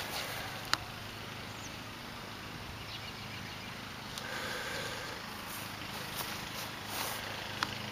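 Faint steady outdoor background noise with a few sharp clicks, one about a second in and a couple more near the end.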